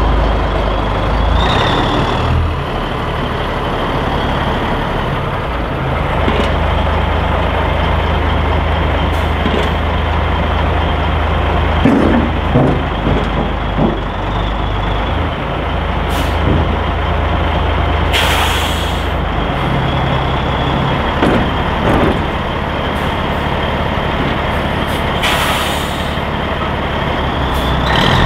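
Heavy diesel truck engine idling steadily, with two short bursts of air hiss from the air brake system and a few metallic knocks in the middle.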